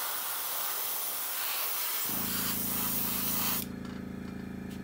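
Airbrush spraying at low air pressure, about 8 PSI: a steady hiss that cuts off about three and a half seconds in. A steady low hum starts about two seconds in and keeps going.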